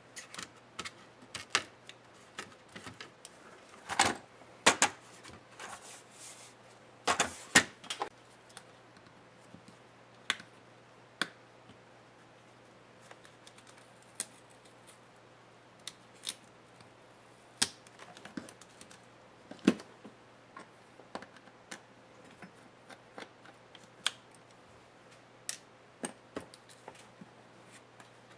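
Irregular clicks, taps and knocks of the HP Stream 13 laptop's small plastic and metal parts being handled and pried apart by hand and with a pocket knife, a few louder knocks in the first eight seconds, over a faint steady low hum.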